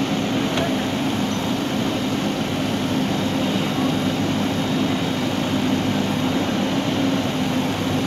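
JCB 3DX backhoe loader's diesel engine running at a steady drone while the backhoe arm digs and lifts soil.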